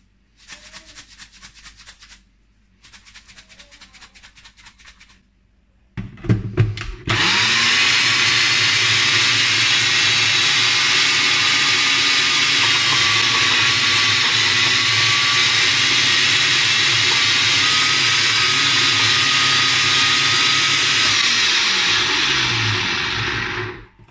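Sencor Nutri Blend 1000 W personal blender: quiet rapid clicking as the cup is handled, a few knocks as it is set onto the base about six seconds in, then the motor starts with a rising whine and runs steadily at full speed, blending the food in the cup. Near the end the motor winds down and stops.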